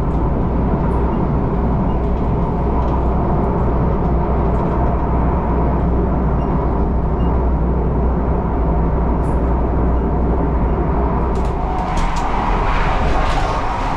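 Steady rumble of an ETS electric train running at speed, heard from inside the carriage. Near the end the rumble drops and a few clicks come as a door handle is worked.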